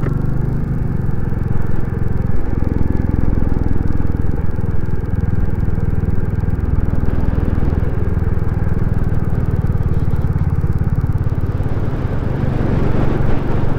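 Royal Enfield Classic 350's single-cylinder engine running steadily in gear as the motorcycle rides along.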